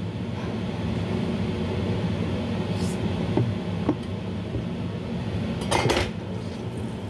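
Kitchen utensils and dishes being handled: a couple of light knocks, then a louder clatter about six seconds in, over a steady low hum.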